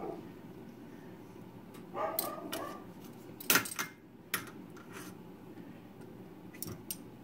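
A few scattered clinks and knocks of kitchen utensils and a jar being handled and set down, over a low steady hum.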